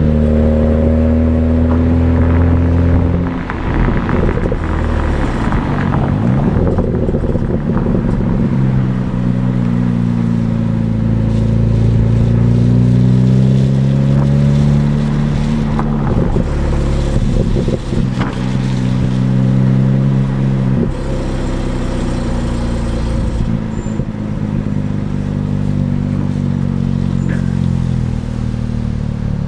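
Exhaust of a stock BMW 335i's twin-turbo straight-six under driving, the engine note climbing and falling several times with short drops in between, and a few brief pops.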